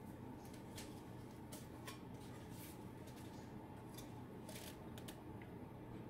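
Faint clicks, taps and rubbing as a homemade wooden fan box with a server fan is picked up and turned over in the hands, about half a dozen short sharp sounds over a low steady hum.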